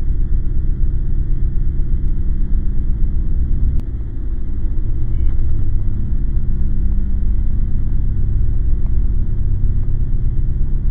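A loud, steady low rumble with a faint droning hum in it; it dips briefly about four seconds in, after a faint click.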